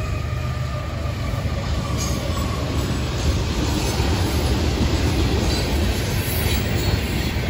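Florida East Coast Railway freight train passing at speed: a steady rumble of the trailing diesel locomotives and the freight cars rolling by, with the clatter of wheels and scattered knocks. In the first second a faint tone falling in pitch fades out, the tail of the train horn.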